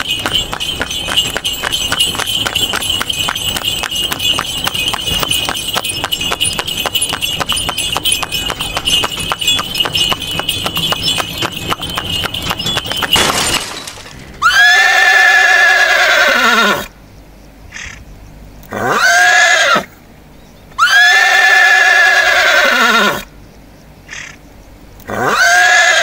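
A fast, even clattering rhythm with a steady high ring runs for about the first half. It stops, and a horse whinnies four times, each call loud and falling in pitch at the end.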